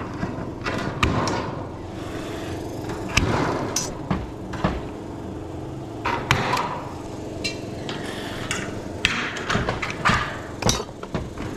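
Metal standing-seam roof panel being bent and trimmed at its end with hand seamers and tin snips: irregular metallic clicks, clanks and rattles as the sheet flexes, over a steady low hum.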